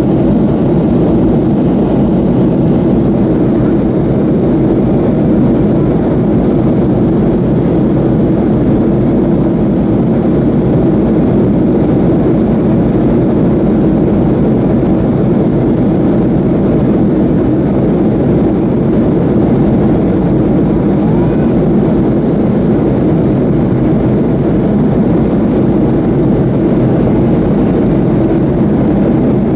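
Steady cabin roar of a Boeing 737-300 in flight, heard from inside the passenger cabin: the even rush of engines and airflow, unchanging throughout.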